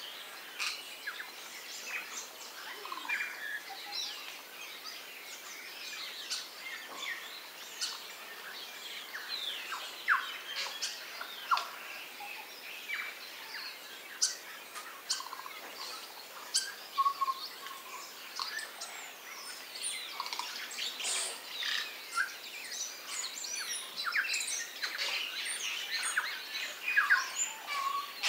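A mixed flock of New Zealand birds calling, with many short chirps, whistles and sliding notes overlapping one another. The calling grows busier in the last third.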